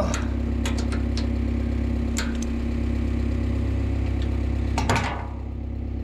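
Skid steer engine idling steadily, with light metal clinks of an adjustable wrench turning a plug on the brush cutter's gearbox. About five seconds in there is one louder metallic clank, as the wrench goes down on the steel cutter deck.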